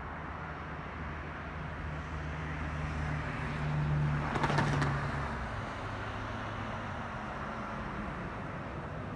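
A motor vehicle passing: engine hum and road noise grow louder to a peak about four seconds in, then fade.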